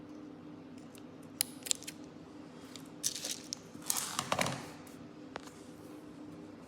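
Scissors cutting string: a few light clicks, then a cluster of snips from about three seconds in, the loudest near four seconds.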